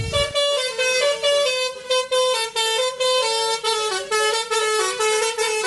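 Truck horn sounding an unbroken string of notes that step up and down in pitch.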